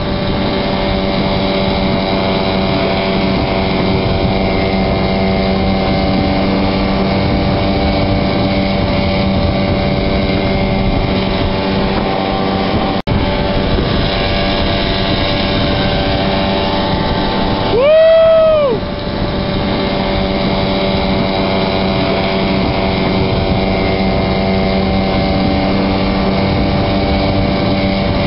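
Tow boat's engine running steadily at towing speed over rushing water and wind. About 18 seconds in, a loud tone rises and falls in pitch for about a second.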